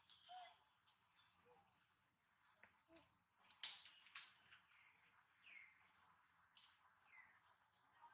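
Insect chirping in steady high pulses, about four a second. Two short, sharp, louder sounds come about halfway through.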